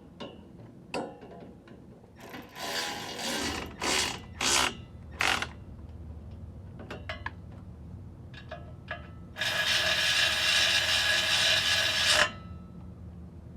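Ratchet wrench working bolts on an engine: a few short bursts of ratcheting, then a louder continuous run of about three seconds near the end.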